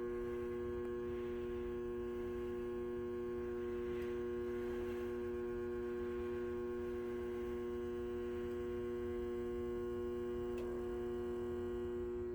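Electrical relay buzzing: a steady, unchanging hum made of several pitched tones.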